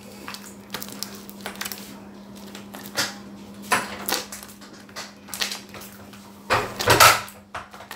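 Scattered light clicks and knocks of containers and utensils handled on a table while slime is mixed, with a louder, longer clatter about six and a half seconds in, over a faint steady hum.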